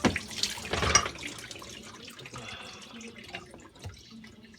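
Two sharp knocks in the first second as a GE dishwasher's door is opened mid-cycle, then water splashing and dripping inside the tub, dying away.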